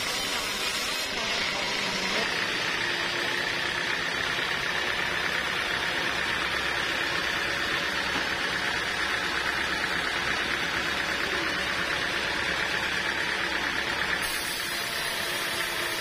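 Band sawmill cutting lengthwise through a large teak block: a steady sawing noise from the blade and motor, with a high whine that comes in about two seconds in and fades near the end.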